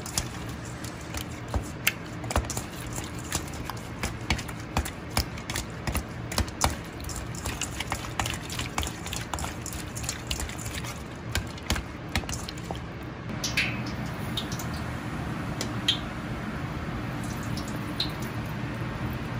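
Wet squelching and clicking of hands working raw chicken wings through a marinade in a stainless steel bowl, over a steady low hum. About two-thirds of the way through this gives way to a steady sizzle with occasional pops: starch-coated chicken wings deep-frying in hot oil in a wok.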